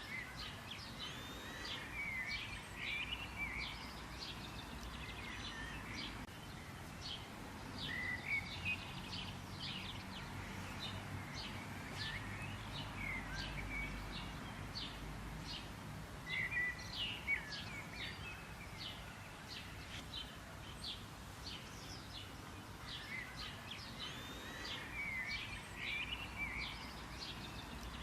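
Birds chirping and twittering: a steady stream of short, high chirps, with busier twittering phrases coming back every several seconds, over a faint background hiss.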